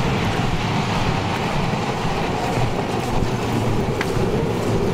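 A steady outdoor rushing noise of wind and passing traffic.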